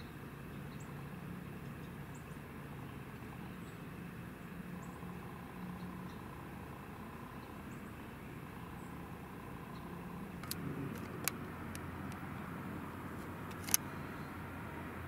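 Steady low hum of a distant engine, with a few sharp clicks between about ten and fourteen seconds in.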